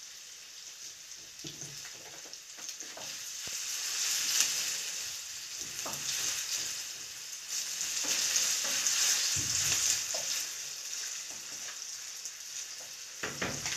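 Thin-cut potato sticks sizzling in hot oil in a frying pan, the sizzle swelling in the middle, with light knocks and scrapes of a wooden spatula stirring them.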